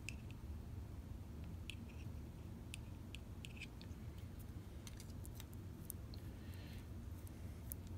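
Light, scattered clicks and ticks of small 1969 VW Beetle speedometer parts being handled and fitted together during reassembly, over a steady low hum.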